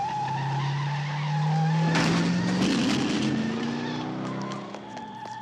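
The Bluesmobile, an ex-police Dodge Monaco with a 440 V8, accelerating hard. The engine note climbs steadily in pitch, and the tyres squeal as it pulls away, with a squeal near the start and another near the end.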